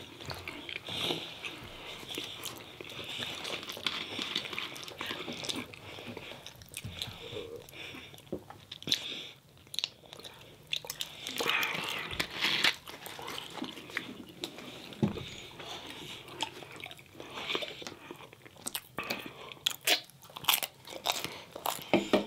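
Close-up eating sounds from a meal of pizza and chicken wings: repeated biting and chewing, with many short, sharp crunchy clicks throughout.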